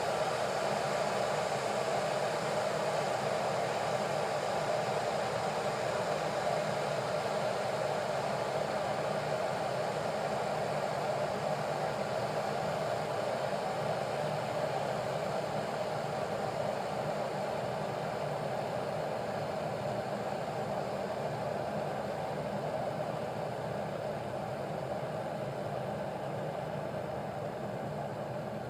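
Kettle of water heating to the boil: a steady rushing noise that eases slightly toward the end.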